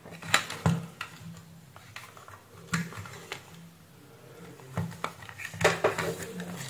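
Light clicks and knocks of a DC barrel plug and cables being plugged into and handled on a plastic satellite receiver case, scattered irregularly, over a faint steady low hum.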